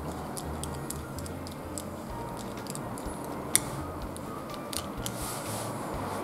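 Small clicks and taps of a screwdriver and a black plastic bicycle-reflector bracket being handled as its mounting screw is undone and the bracket is taken apart, with one sharper click about three and a half seconds in.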